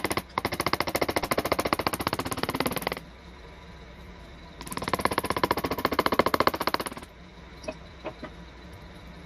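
A power carving tool hammering in very rapid, even strokes into wood, in two bursts of about two and a half seconds each, with a pause of a second and a half between them. A few single light knocks follow near the end.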